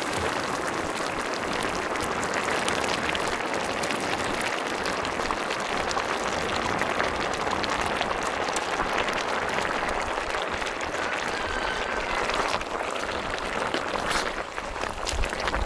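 Spicy braised chicken stew boiling hard in a wide cauldron-lid pan: a steady, dense bubbling and sizzling crackle.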